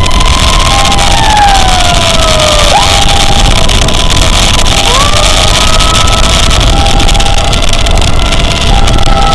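Electronic emergency sirens in the German-style tone, wailing with long held pitches that slide slowly down and jump back up, alongside a second siren tone pulsing on and off. Steady wind and road noise of a moving vehicle sits under them.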